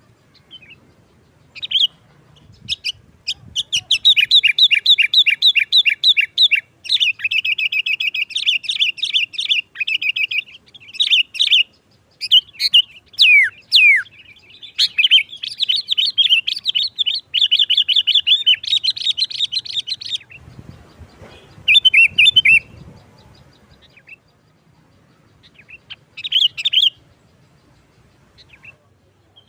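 Sooty-headed bulbul (kutilang) singing in its sharp, excited 'nggaruda' style: long runs of rapid, piercing chattering notes broken by short pauses. Near the end it gives only a couple of brief bursts with quiet between them. This kind of song is used as a lure call to provoke other bulbuls.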